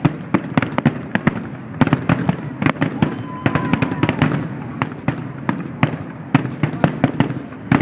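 Fireworks going off in rapid, irregular sharp cracks and bangs, several a second, with a brief whistling tone about three and a half seconds in.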